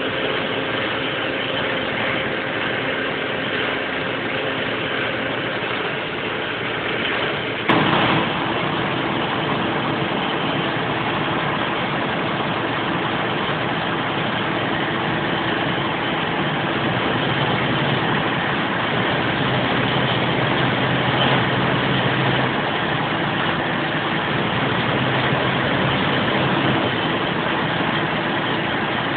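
Don-1500B combine harvester's diesel running steadily, with one sharp knock about eight seconds in.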